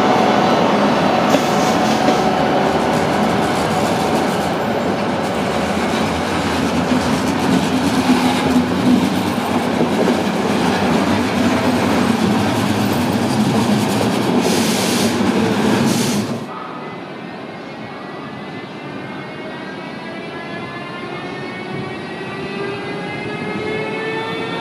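A ZSSK class 240 electric locomotive and its coaches running past close by: a steady loud rumble of wheels on rail. About two-thirds of the way through the sound cuts suddenly to a quieter scene, where a Siemens Vectron electric locomotive's traction converters whine in several rising tones together as it pulls away.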